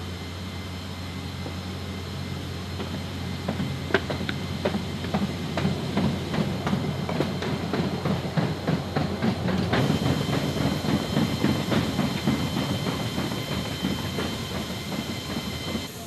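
Cargo rolling over a C-17 Globemaster III's cargo-floor roller tracks. A rapid, irregular clattering and knocking of the rollers starts about four seconds in and keeps on, over a steady low hum of machinery.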